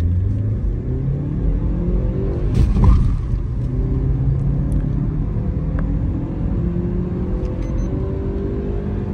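Manual-transmission car's engine at full throttle from a standstill, heard from inside the cabin. The engine note climbs steadily in pitch, breaks briefly with a knock about three seconds in at a gear change, then climbs again more slowly under hard acceleration.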